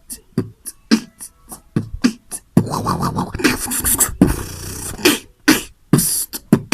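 Human beatboxing: a vocal percussion pattern built from a lip 'boom' bass kick, a 'chi' hi-hat and an inward-sucked snare. It starts as quick, sharp hits, and from about two and a half seconds in it turns into longer, hissing drawn-in sounds between the hits.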